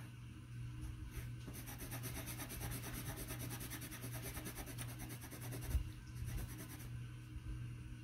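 Yellow coloured pencil scratching on paper in quick back-and-forth colouring strokes, starting about a second and a half in and stopping near the end, over a low steady hum.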